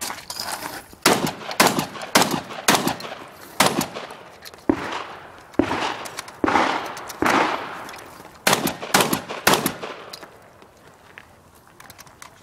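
Mossberg 930 12-gauge semi-automatic shotgun firing about a dozen shots in quick strings, roughly half a second to a second apart, each with a short echo. The shooting stops about ten seconds in.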